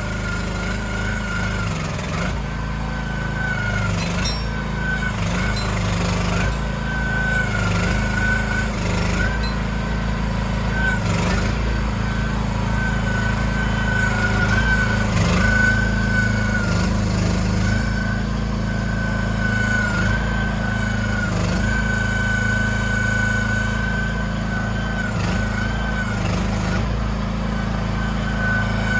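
Mini excavator's engine running steadily with a high whine above it, the pitch of both dipping briefly every second or two, and scattered short knocks.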